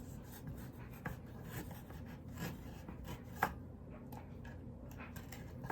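Exacto craft knife scraping along a cardboard box seam as it cuts, faint irregular scratches with a small sharp click about three and a half seconds in.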